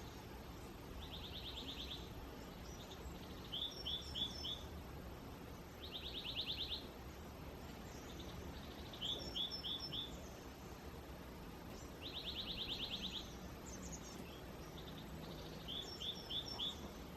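Songbirds calling over a steady low background rumble: a fast trill about a second long alternates with a quick run of four short down-slurred chirps, and each pattern comes three times.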